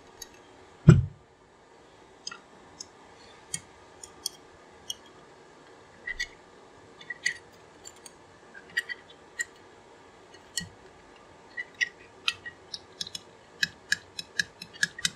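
Light metallic clicks and taps as a steel separator plate and an aluminium transmission valve body are handled and shifted against each other. There is one dull thump about a second in, and the clicking comes quicker near the end.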